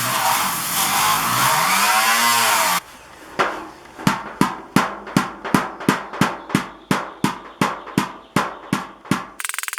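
A power tool runs loudly for about three seconds and cuts off. Then a hammer strikes metal in a steady series, about three blows a second, each ringing briefly, as dents are worked out of a soft copper fire pit.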